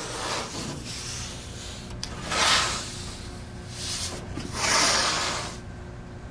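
1.5-inch masking tape being pulled off the roll and laid on the lid, in rasping tearing pulls: two loud ones about a third of the way in and near the end, with fainter rubbing between.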